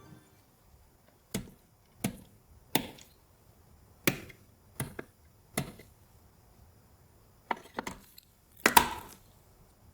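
PC hardware being handled and fitted during assembly: a series of separate sharp clicks and knocks, six evenly spaced at first, then a quick pair and a louder short cluster near the end.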